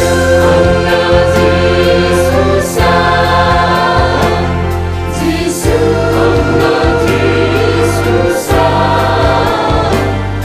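A choir singing a Christian gospel song with instrumental accompaniment: steady bass notes and a regular beat under the voices.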